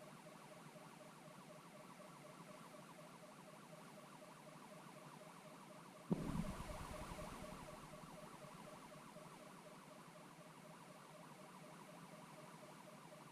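Faint, rapid pulsing beeps from the buzzer inside the balloon-borne rocket payload, heard through the onboard camera. About six seconds in there is a sudden thump, followed by a low rumble that fades over a couple of seconds.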